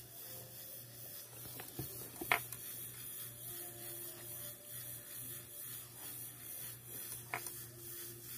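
Small motor of a Kato N scale D51 locomotive running slowly on about 3 volts through hand-held test leads, a faint thin whine over a steady low hum. A few light clicks, the sharpest about two seconds in.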